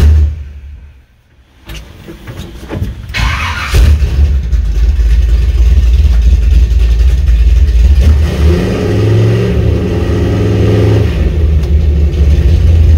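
Small-block V8 (ZZ4 350) of an '85 Chevy C10 with long-tube headers and Spintech mufflers, heard from inside the cab: the engine starts about four seconds in and then runs loud and deep, with the note briefly rising between about 8 and 11 seconds.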